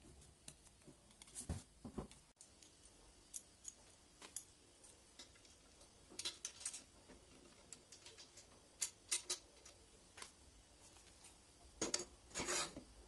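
Faint, scattered clicks and taps of bicycle parts being fitted by hand, a metal clamp and tools knocking lightly. Near the end, a louder knock and a short scrape as a seatpost is slid into the frame's seat tube.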